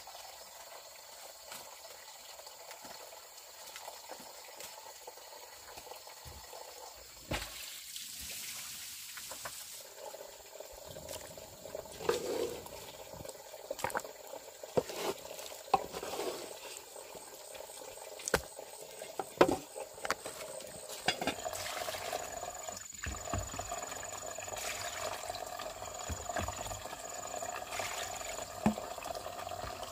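Water sloshing, with scattered light knocks and clicks.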